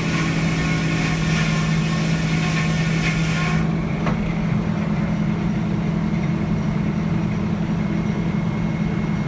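The sawmill's diesel engine running steadily, with a loud hiss over it that cuts off abruptly about three and a half seconds in. The engine is running rough, and the owner suspects a cracked head or a damaged fuel gallery.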